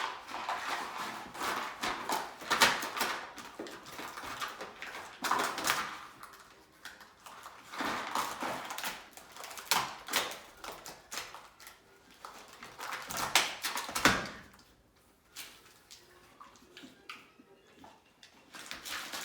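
A dog rummaging in and ripping at a food puzzle box: irregular rustling, scraping and tearing, in bursts, fading to only scattered small noises for the last few seconds.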